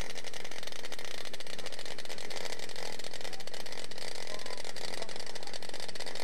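Engine of a large radio-controlled twin-engine scale model plane running steadily on the ground, a fast, even buzz with no let-up.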